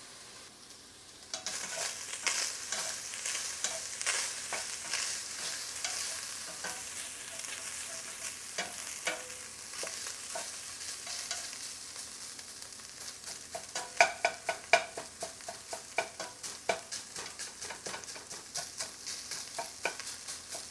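Ground pork sizzling as it browns in a metal pot, stirred and broken up with a spatula that scrapes and taps against the pot again and again. The sizzle starts about a second in, and the scraping strokes grow louder and more regular past the middle.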